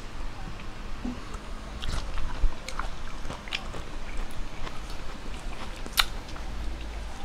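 Close-miked chewing of a mouthful of food with the lips closed: scattered soft wet clicks and smacks, with one sharper click about six seconds in.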